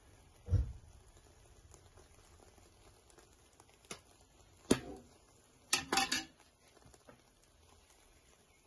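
A perforated metal skimmer spreading cooked rice in a steel pot: a dull bump about half a second in, then a few sharp clicks and taps of the skimmer against the pot a little after the middle.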